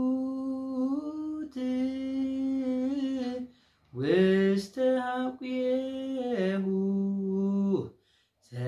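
A man singing an Orthodox Tewahedo hymn (mezmur) solo and unaccompanied, in long held notes. Two sung phrases, with a breath break about halfway through and another near the end.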